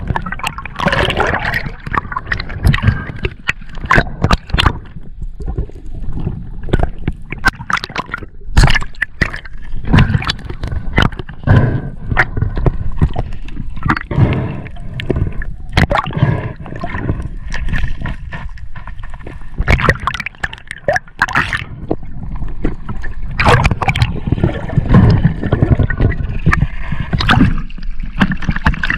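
Water gurgling and sloshing against an underwater camera housing, with frequent sharp clicks and knocks. The sloshing grows denser near the end as the camera reaches the surface.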